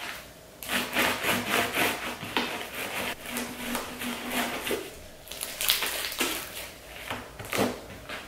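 Gold slime heavily loaded with mica powder being kneaded, folded and pressed by hand on a tabletop: sticky squishing and crackling in quick irregular bursts, with the slime full of trapped air bubbles.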